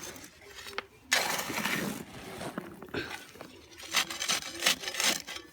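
Dry aggregate and cement being hand-mixed before the water goes in: gritty scraping and rattling strokes of uneven length, the longest about a second in, then several shorter scrapes.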